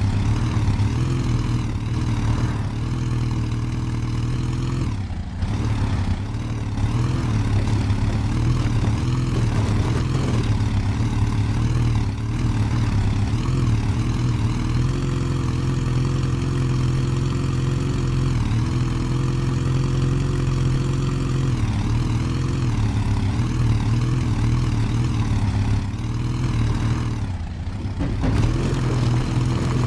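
Off-road 4×4 vehicle's engine running continuously, its pitch rising and falling with the throttle, easing off briefly about five seconds in and again near the end.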